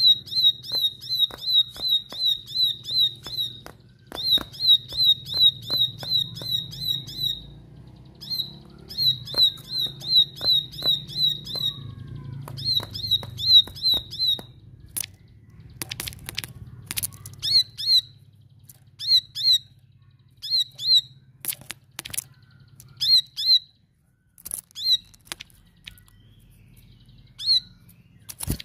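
Plain prinia singing an insistent song: runs of the same high, sharp note repeated about three to four times a second, each run lasting a few seconds. About halfway through, the runs give way to single scattered notes mixed with sharp clicks.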